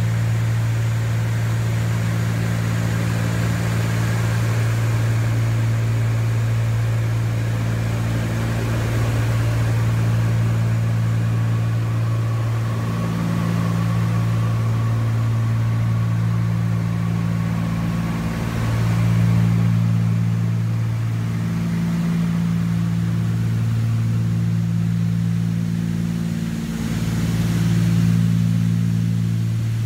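Cessna 310's twin piston engines and propellers heard from inside the cabin in cruise flight: a steady low drone whose upper tone wavers slowly and regularly.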